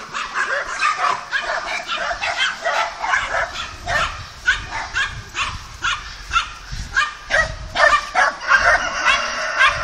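A rapid, continuous series of short, high-pitched animal calls, several a second.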